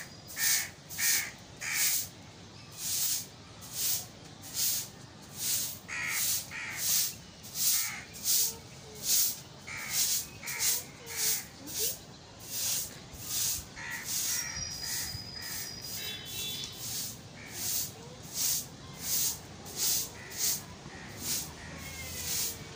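Soft grass broom sweeping a concrete floor: repeated short swishes, about two strokes a second. A few faint high chirps come about two-thirds of the way through.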